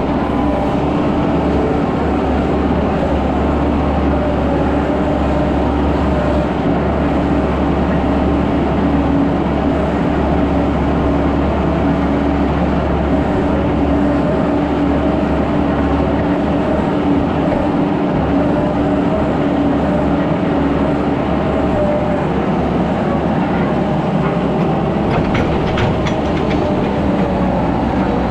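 Skid steer engine running steadily under work, a continuous loud drone with a low rumble, and a few short rattles near the end.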